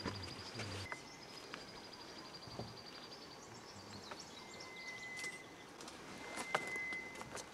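Faint rainforest ambience: a high, rapid trill for about three seconds and a few long, steady whistled notes from calling animals, with scattered sharp clicks, the loudest about two thirds of the way through.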